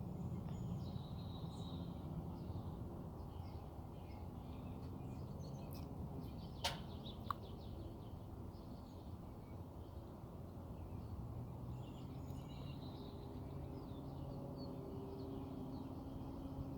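Low steady rumble of an aircraft overhead, with birds chirping and two sharp clicks about seven seconds in.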